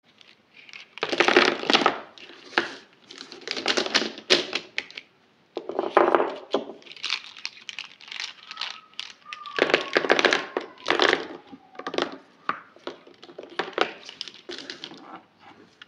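A handful of plastic Maped felt-tip markers clattering and clicking against each other as they are shuffled in the hands and laid out on paper, in repeated bursts of rattling taps.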